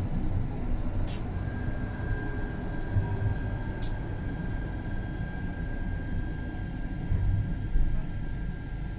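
Alstom Citadis tram running along its track, heard from on board: a steady low rumble, with a steady whine coming in about a second in. Two sharp clicks stand out, one about a second in and one about four seconds in.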